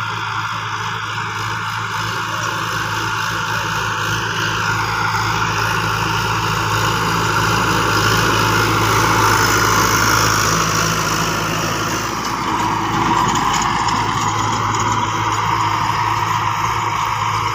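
Tractor diesel engine running steadily under load as it pulls a tillage implement through soil. It grows louder toward the middle as the tractor passes close by, then eases off a little.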